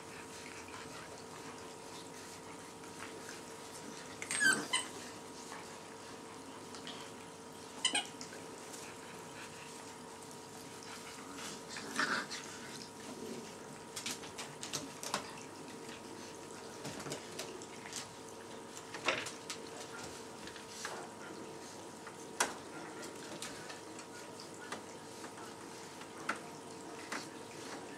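Labrador retriever puppies giving a few short whines and squeaks, several seconds apart, over a steady faint hum.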